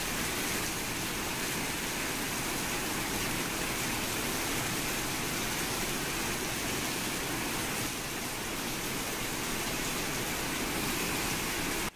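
Rainwater pouring in many streams from a leaking station roof and splashing onto the tiled platform floor: a steady rushing splash.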